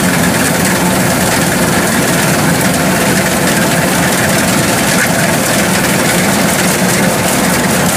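Kubota DC-108X rice combine harvester's diesel engine and threshing machinery running steadily under load as it cuts wet rice.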